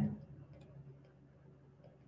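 Faint, sparse ticks of a stylus tapping on a tablet screen during handwriting, over quiet room tone.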